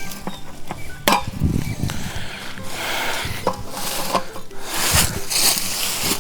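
Camp gear being handled: irregular clinks and knocks of metal cookware and utensils, with scraping and rustling between them.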